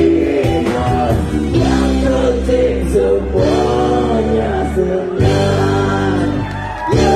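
Live band performing a rock song on stage, with sung vocals through microphones over guitar and drums.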